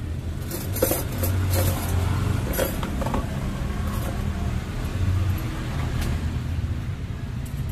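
Plates and metal utensils clinking several times over a steady low rumble, most of the clinks in the first few seconds.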